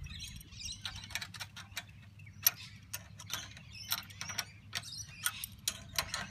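Irregular light clicks and rattles from a metal antenna mast clamp as its nuts are finger-tightened onto the pole, with one louder click about two and a half seconds in.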